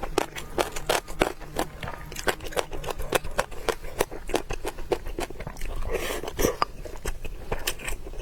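Close-miked eating, with rapid crisp, crunchy bites and chewing clicks several times a second, and a short wet smacking or slurping sound about six seconds in.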